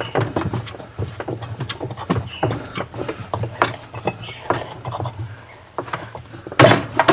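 Irregular metal clicks and light taps from hand tools working an agitator puller on a washing machine's agitator, over a low steady hum, with a louder clatter of knocks near the end.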